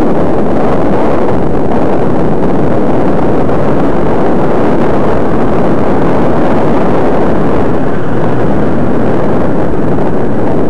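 Wind buffeting the microphone of camera glasses worn while cycling: a loud, steady rumbling rush with no breaks.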